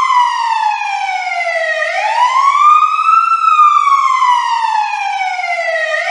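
Siren wailing in a repeating cycle: the pitch climbs quickly and then falls slowly over about four seconds, starting a new rise about two seconds in and again right at the end.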